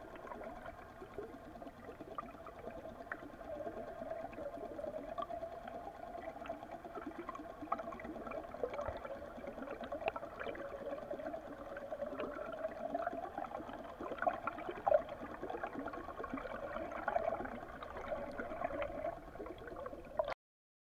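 Water rushing and gurgling heard from a submerged camera while a trolling lure is towed through the water, with scattered small clicks. It cuts off suddenly about 20 seconds in.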